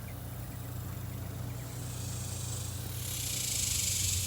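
Cicadas making a high, rattling buzz that swells about two seconds in and is loudest near the end, over a steady low hum.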